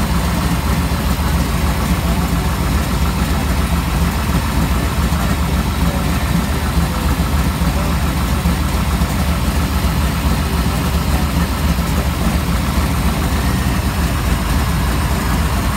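Supercharged 598 cubic-inch V8 engine idling steadily, loud and even, with no revving.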